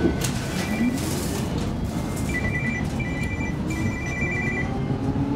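Running noise inside a moving Gothenburg M29 tram, with a faint whine that rises slowly in pitch as it gathers speed. About two seconds in, an electronic two-tone beep sounds in three bursts, the last one the longest.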